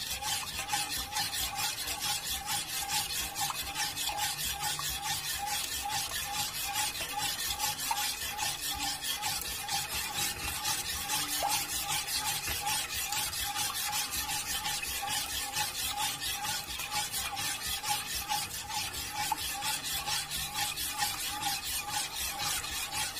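Metal spoon stirring and scraping round the bottom of a pot of lemon and orange glaze in steady strokes, about two to three a second. The cornstarch glaze is being stirred over the heat until it thickens to a cream.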